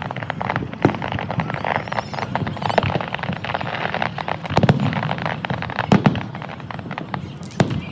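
Aerial fireworks display: a dense, continuous crackling and popping of bursting shells, with a few louder bangs about a second in, around the middle, and near the end.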